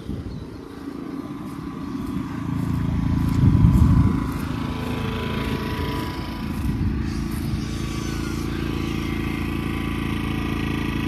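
Job-site power equipment running steadily with a constant motor hum, swelling louder about three to four seconds in and then holding level.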